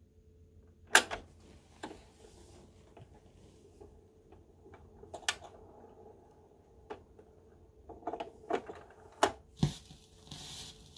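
Record-player handling: a series of sharp clicks and knocks as the tonearm is lifted across and cued over a spinning 45 rpm vinyl single. Near the end the stylus drops onto the record with a thump, followed by the crackle and hiss of the lead-in groove.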